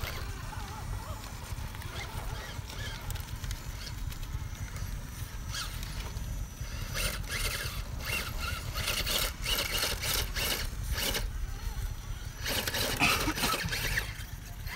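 Wind rumbling on the microphone, with bursts of scraping and crunching from about five seconds in as an RC scale crawler's tyres and chassis grind over granite rock.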